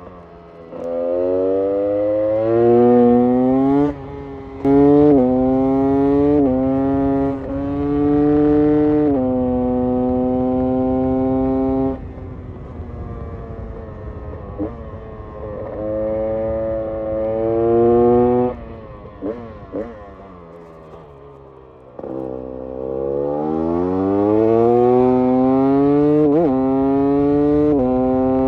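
GasGas two-stroke enduro engine revved in repeated bursts: the pitch climbs and is held for a few seconds, with quick blips between, then drops back to idle. The longest, highest rise comes near the end.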